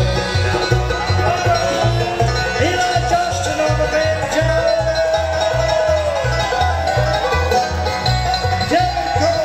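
Live bluegrass band playing with banjo, guitar, fiddle and mandolin over a steady upright-bass beat; an instrumental stretch with no singing and some long sliding melody notes.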